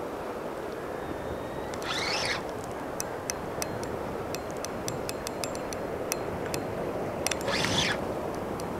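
Steady rush of wind and fast-flowing tidal water, with scattered light clicks and two short high calls, one about two seconds in and one near the end.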